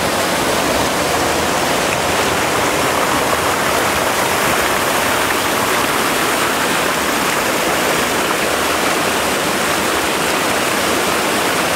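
Loud, steady rush of churning water, unbroken and without rhythm.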